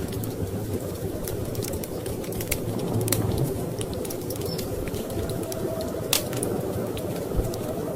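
Wood fire in a fireplace crackling, with scattered sharp pops, the loudest about six seconds in, over a steady low rush of storm wind.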